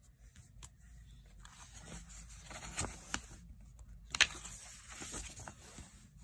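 Paperback picture book being opened and its pages turned by hand: soft paper rustling, with a few sharper page snaps in the middle.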